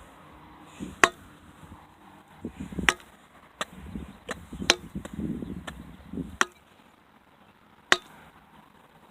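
A digging tool chopping into the ground: about five sharp strikes at uneven intervals, a second or more apart, with softer scraping between them.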